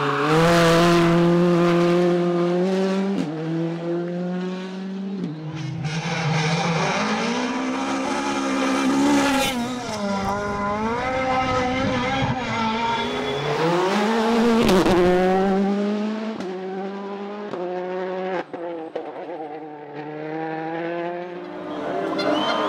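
Rally car engine being driven hard, its note climbing and dropping over and over as the driver works the throttle and gears, with a sharp dip and climb back up about two thirds of the way through.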